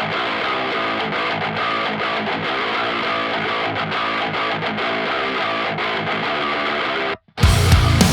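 Background music: a guitar-led track with a steady repeating figure, which cuts out briefly near the end and comes back louder and heavier with distorted electric guitar.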